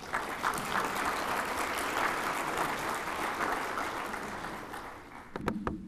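Audience applauding, a steady patter of many hands that fades away after about five seconds. Near the end come two or three sharp knocks.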